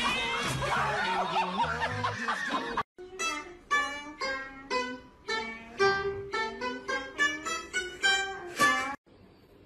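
A Chinese plucked lute playing a melody of single plucked notes, about three a second, each ringing and fading. Before the lute, about three seconds of dense music cut off abruptly.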